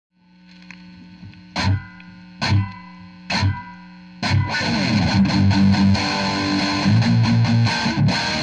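Distorted electric guitar played through a small guitar amp. A note rings under three hard-picked chord hits, then about four seconds in a louder, steady rhythmic riff starts.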